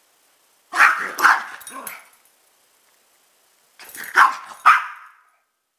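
Dogs barking in play, in two short bursts of several sharp barks: one about a second in, the other around four seconds in.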